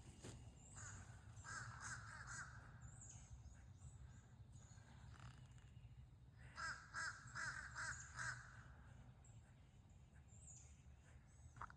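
Faint crow cawing: a couple of harsh caws early, then a run of four caws around the middle, with small birds chirping high in the background.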